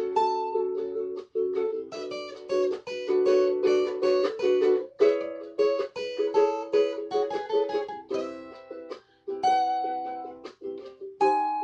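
Acoustic plucked string instrument played live, a chord pattern strummed and picked in quick repeated strokes with short breaks between phrases.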